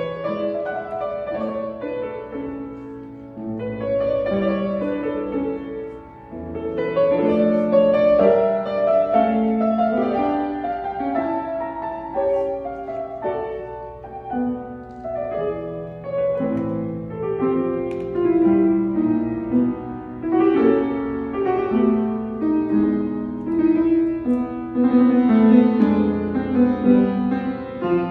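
Piano music: a continuous run of melody and chords with no drum beat, softening briefly about six seconds in.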